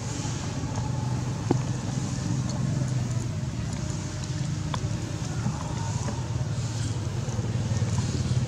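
A motor engine running with a steady low hum that grows louder near the end, with a couple of faint clicks.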